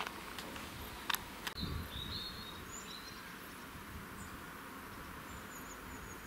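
Quiet outdoor ambience with a few sharp clicks in the first second and a half and a dull thud just after. A short bird call follows about two to three seconds in.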